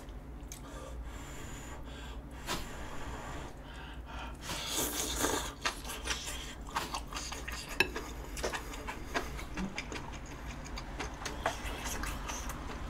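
Eating sounds: chewing a mouthful of stew, with scattered light clicks of chopsticks against a bowl.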